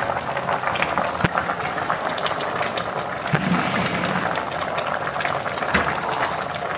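Chicken adobo's soy-and-vinegar sauce boiling hard in an open stockpot on a gas stove: steady bubbling with many small irregular pops and crackles as the sauce reduces.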